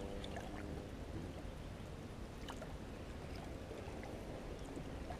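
Faint sloshing and lapping of water around people wading chest-deep, with a few small ticks of splashing.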